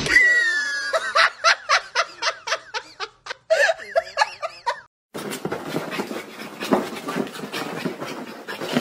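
A person laughing hard in quick repeated bursts, three to four a second. About five seconds in it cuts off suddenly to a quieter stretch of busy noise.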